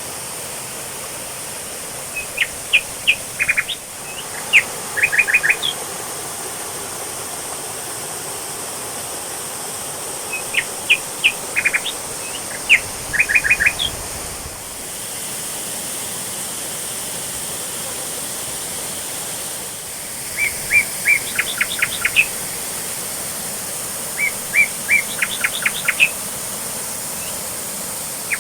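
A songbird singing four short bouts of quick, sharp whistled notes, over the steady rush of a waterfall.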